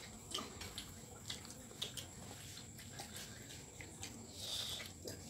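Faint wet eating sounds of chewing with the mouth, with lip smacks and small clicks scattered through, and a short hiss a little past four seconds in.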